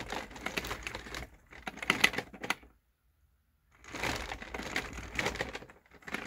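3D-printed dual-cone pulse motor rattling with rapid dense clicking as its rotor is turned slowly by hand, in two spells with about a second of silence between them.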